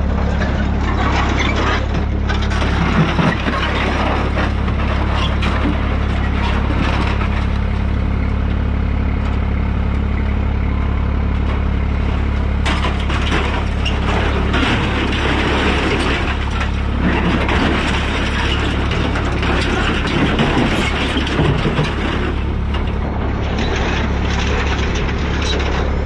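Volvo compact excavator running steadily while its bucket drops loads of scrap metal into a trailer: irregular crashing, clanking and crunching of metal over the engine's low hum.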